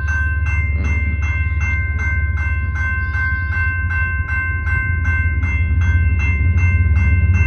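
Grade-crossing warning bell ringing steadily at about two and a half strikes a second, over a deep low rumble from the approaching BNSF rock train that grows louder near the end.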